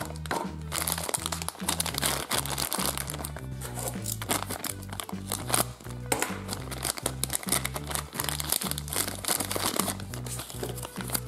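Plastic packaging crinkling and tearing as a Sweet Box toy pack is unwrapped by hand, with irregular crackles throughout. Background music with a stepping bass line plays underneath.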